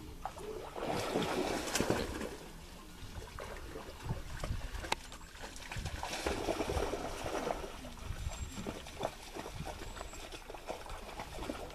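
Water splashing and trickling around a small rowboat, with light knocks and clicks against the hull; the splashing swells twice, about a second in and again around six seconds.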